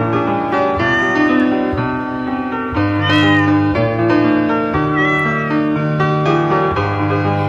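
Background piano music throughout, with a cat meowing twice, in short arching calls about three and five seconds in.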